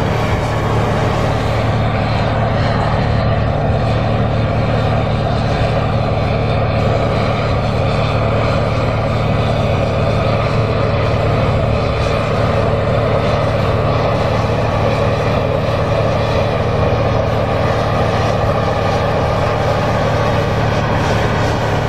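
John Deere 8R tractor's diesel engine running steadily under load while pulling a field cultivator through the soil, a constant low hum.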